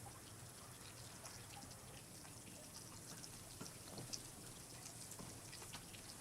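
Faint water dripping: scattered, irregular drops over a soft steady hiss of running water.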